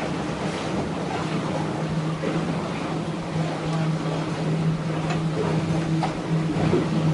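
Wind and water rushing noise aboard a yacht under way, with a steady low hum underneath.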